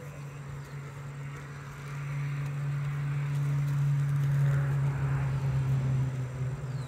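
Honeybees buzzing around an open nuc hive, a steady low hum that swells to its loudest a little past the middle and then eases.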